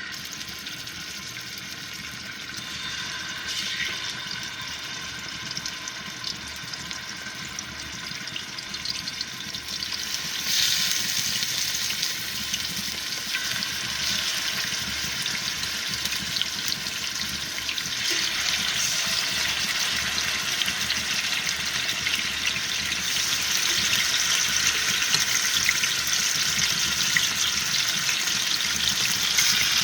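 Seasoned chicken pieces frying in hot oil in a pot: a steady sizzle with fine crackling. It gets louder about ten seconds in and again from about eighteen seconds.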